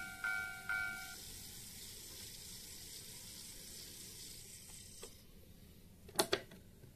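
Model railroad level-crossing alarm bell ringing about twice a second, stopping about a second in. A steady hiss follows, then two sharp clicks in quick succession near the end, the loudest sounds.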